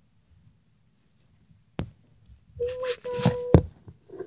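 Rubbing and knocking of a phone being handled, with a sharp click a little before halfway and a loud knock near the end. In between, a short steady-pitched tone sounds twice.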